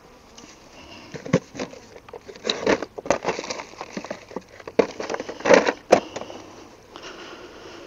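Irregular rustling, scuffing and light knocks of gear being handled, with louder bursts about a third of the way in and again a little after five seconds in.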